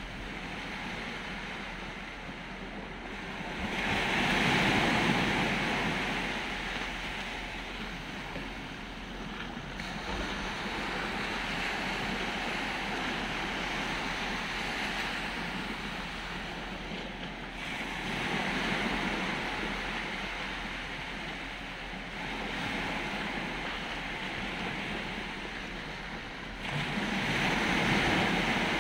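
Small waves washing onto a muddy shore in a steady hiss, swelling louder about four seconds in, again past the middle, and near the end.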